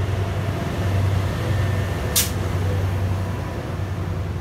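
A towed passenger train of Bombardier multilevel coaches and an ALP-45 locomotive rolling slowly past, with a steady low hum throughout. A brief, sharp hiss of air comes about two seconds in.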